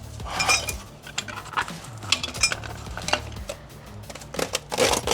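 Metal hand tools and engine parts clinking and knocking against each other as they are handled, with several sharp clinks scattered through a few seconds.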